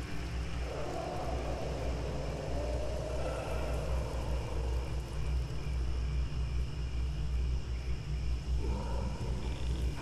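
Night-woods ambience: a steady low wind rumble with faint thin high tones above it. A drawn-out whooshing swell rises about a second in and fades over several seconds, and a shorter one comes near the end.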